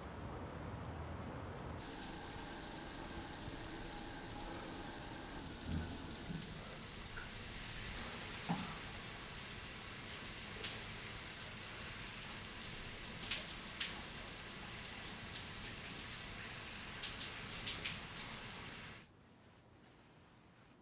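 Shower running: water spraying from an overhead shower head onto a person, a steady hiss with scattered small splashes. It starts suddenly about two seconds in and stops suddenly near the end, leaving faint room tone.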